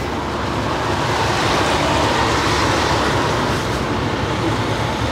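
Steady rumble of a vehicle on the move.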